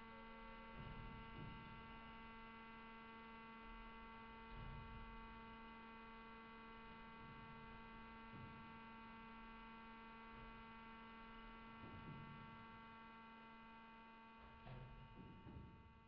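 Faint, steady electrical hum with a stack of even overtones, with soft low thuds every few seconds.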